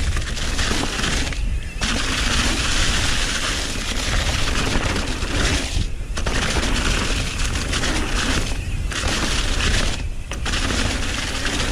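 Wind rushing over a helmet-mounted GoPro's microphone, with tyre and frame rattle from a full-suspension mountain bike running fast down a dirt jump trail. The rush dips briefly four times.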